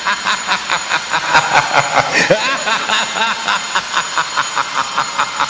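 An alarm bell ringing in quick, even strikes, about six a second.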